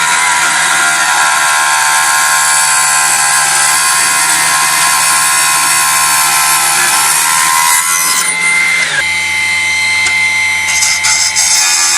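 Miniature benchtop table saw running and sawing: a loud, steady high whine over a hissing rasp. The pitch of the whine shifts about eight to nine seconds in.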